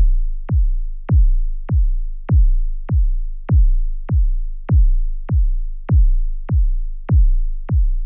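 Synthetic heartbeat sound effect: deep, evenly spaced single thumps, a little under two a second, each ringing down into the next. It starts suddenly after silence.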